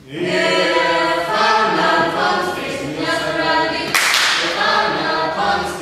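A small group of voices singing an action song together, unaccompanied, with one sharp clap about four seconds in.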